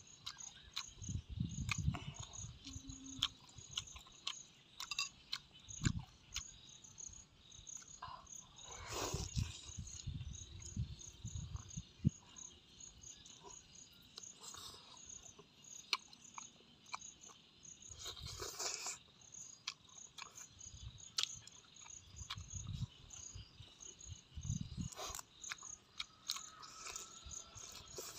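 Close-up chewing and biting of boiled pork and raw greens, with irregular crunches and wet mouth clicks. Underneath, crickets chirp in a steady, rapid, high pulse.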